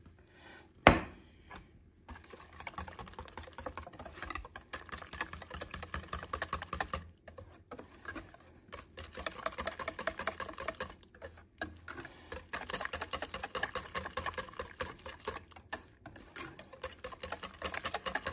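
Wire balloon whisk beating crêpe batter in a stainless steel saucepan: rapid rattling clicks of the wires against the metal, broken by a few short pauses. A single sharp knock about a second in.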